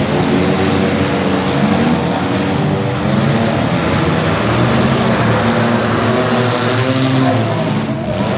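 Several demolition derby cars' engines running loudly together, their pitches rising and falling as they rev.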